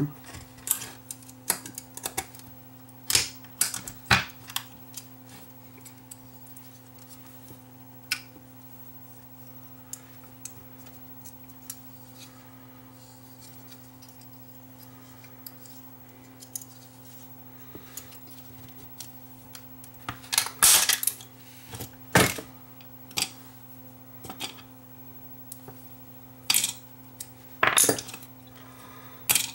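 Small metal clicks and taps of a precision screwdriver and loose parts against the aluminium case and head arm of a 2.5-inch hard drive being dismantled. They come in scattered bunches, a few near the start, more about two-thirds through and near the end, over a faint steady hum.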